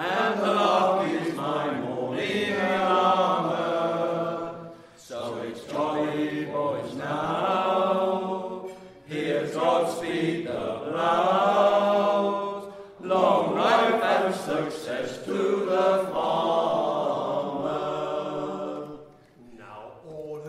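A group of men singing the chorus of a traditional folk drinking song together, in phrases of a few seconds with short breaks between lines.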